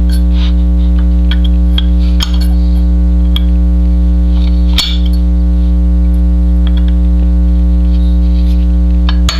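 Loud steady mains hum on the recording, with scattered light metallic clinks and ticks of a small punch and pistol parts being handled, and two sharper knocks. Right at the end, quick taps on the punch begin as the extractor pin is driven.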